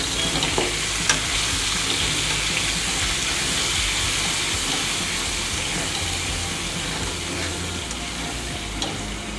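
Steamed rice flour balls being stirred with a metal spatula in a kadhai of hot oil, sizzling steadily in a mustard-seed tempering. There are a couple of light clicks of the spatula against the pan, about a second in and near the end.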